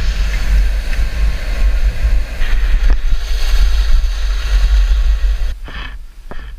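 Wind buffeting the camera's microphone during a downhill ski run, with the hiss of skis sliding over packed, groomed snow. Both drop sharply about five and a half seconds in, leaving a few short ski scrapes.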